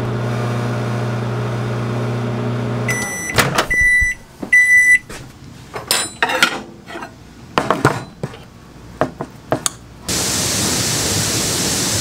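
Microwave oven running with a steady electrical hum that stops about three seconds in, followed by its end-of-cycle beeps. Clicks and knocks follow as the door is opened and the plate is taken out. Near the end, a steady rush of outdoor air noise.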